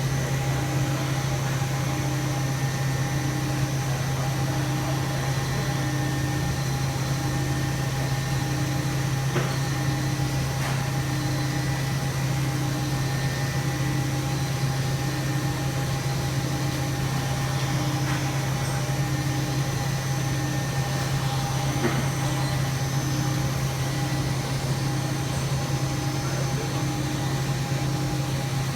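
2009 Hurco VM10 CNC vertical machining center running under power: a steady low machine hum with a mid-pitched tone pulsing on and off about once a second, and a few faint clicks.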